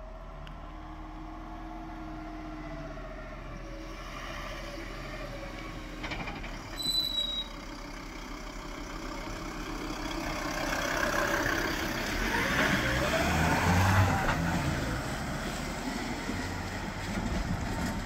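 Volkswagen Crafter-based small fire engine (TSF) with a diesel engine, driving past: engine and tyre noise build as it approaches, are loudest as it goes by, then fade as it pulls away. A short high beep sounds about seven seconds in.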